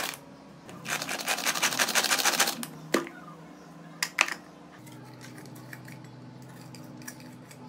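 Pull-cord manual onion chopper (AGARO) clattering rapidly for about two seconds as its cord is pulled and the blades spin through onions. A few sharp knocks follow as the plastic container and lid are handled.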